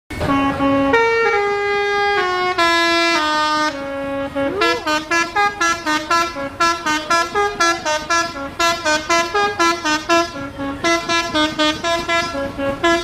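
Truck-mounted telolet basuri melody horn playing a tune: long held notes first, then from about four seconds in a fast run of short notes, several a second.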